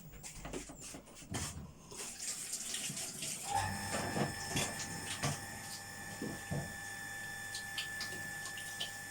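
Water running from a tap into a sink. About three and a half seconds in, a steady hum and whine set in alongside it, with a few light knocks.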